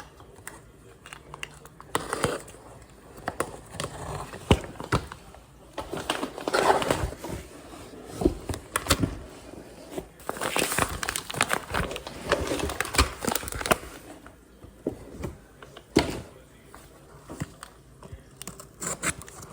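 Crinkling and rustling, like packaging or a bag being handled, with scattered sharp clicks and knocks throughout.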